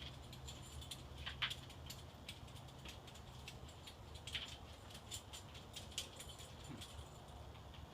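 Hunter 1886 ceiling fan coasting through a spin-down with the power off: faint, irregular ticks and light rattles over a low, steady hum.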